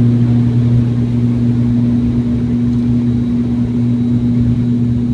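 Passenger plane's engines heard from inside the cabin during takeoff and climb: a loud, steady drone with a low hum over a constant rushing noise.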